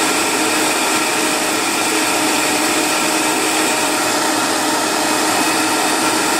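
Vitamix blender motor running steadily, blending a smoothie: an even whir with a steady hum.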